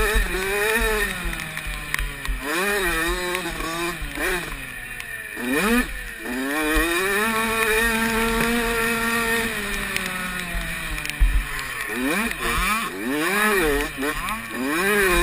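Motocross dirt bike engine revving hard, its pitch climbing and dropping as the rider accelerates, shifts and backs off. There is a sharp climb about six seconds in, a long steady pull after it, and quick rises and drops near the end.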